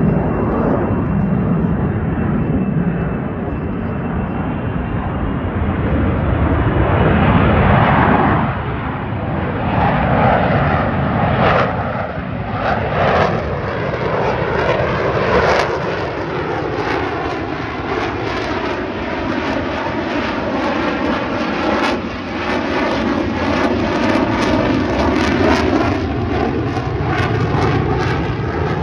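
Airplane flying past overhead, its engine noise loud throughout and peaking about eight seconds in, with a falling sweep in pitch as it passes and moves away.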